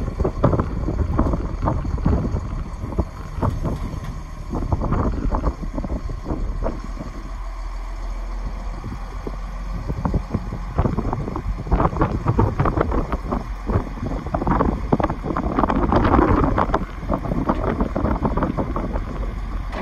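Caterpillar wheel loader's diesel engine running as the machine moves and raises its bucket, louder in the second half, with wind buffeting the microphone.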